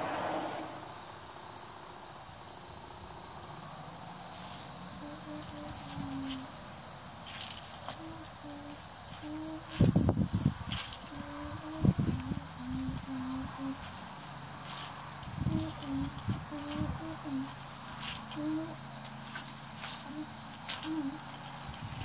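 Insects chirping in a fast, even pulsing rhythm, with sharp knocks of gravel and toys being handled about ten and twelve seconds in.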